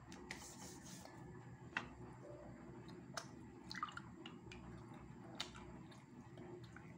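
Faint breakfast-table sounds of eating and drinking coffee: a few light clicks and taps of a spoon and mug, and a short sip from the mug about four seconds in.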